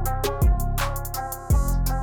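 Background music with a steady drum beat, a kick drum and hi-hat over sustained bass and synth notes.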